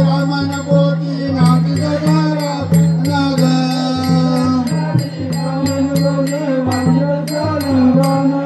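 Live Naman folk music: a singing voice over a sustained, pulsing low drone, with a steady beat of sharp percussive strikes.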